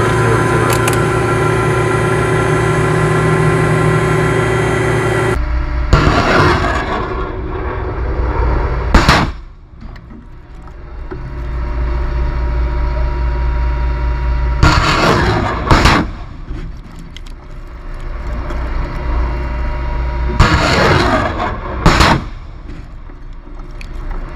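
Rocket launches from an M142 HIMARS heard from inside its cab. A steady hum of the truck's engine and cab equipment gives way, about five seconds in, to several loud blasts of rockets leaving the launcher, several seconds apart, with a low engine rumble between them.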